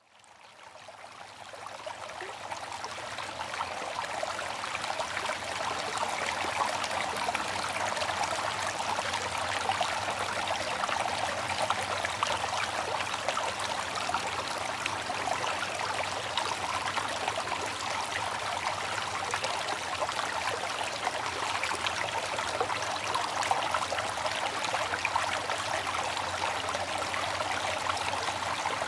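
Steady rush of running water, fading in from silence over the first few seconds and then holding at an even level.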